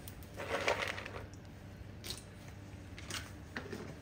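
Cashew nuts tipped by hand onto batter in a stainless steel mixing bowl: a short crunchy patter about half a second in, followed by a few faint clicks.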